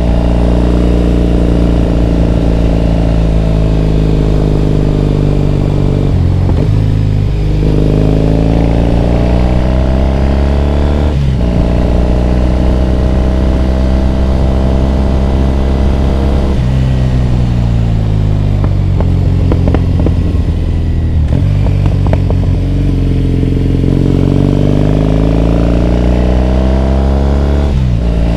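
Triumph Bonneville T100's parallel-twin engine and exhaust, heard while riding. Its pitch climbs as the bike accelerates, with short breaks for gear changes about six and eleven seconds in. It holds steady, falls away as the rider eases off past the midpoint, then climbs again to another shift at the end.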